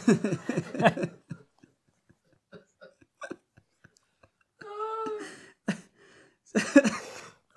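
Men laughing hard: a run of choppy laughter bursts at first, then breathy catches and faint clicks, then two more outbursts of laughter in the second half.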